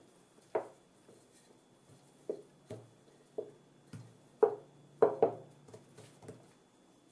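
Wooden rolling pin rolling out bread dough on a countertop: a series of about ten soft, dull knocks at uneven intervals, loudest a little past the middle.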